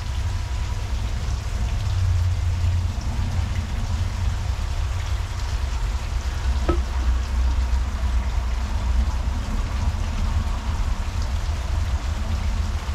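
Paintbrush working paint onto a textured stucco wall, a steady scratchy hiss over a constant low rumble, with one short knock about seven seconds in as the brush is dipped into the metal paint can.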